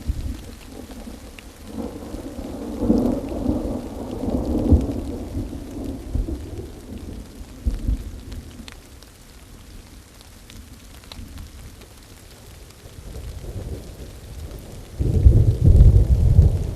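Thunderstorm: steady rain with thunder rolling in. One long rumble runs from about two seconds in to about eight, and a louder, deeper peal of thunder breaks near the end.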